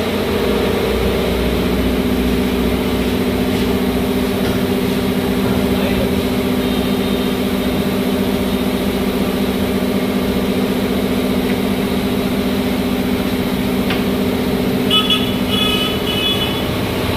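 Steady mechanical hum of a running motor or engine, even throughout, with a few short high-pitched beeps about fifteen seconds in.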